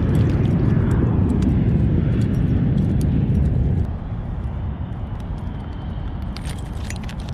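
Loud low rumbling noise on the microphone that drops off sharply about four seconds in, with small clicks and ticks over it.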